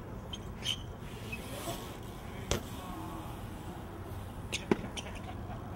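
BMX bike riding on a concrete skatepark: a steady low rumble of tyres rolling on the concrete, with a few sharp knocks and clicks. The loudest knock comes about three-quarters of the way through.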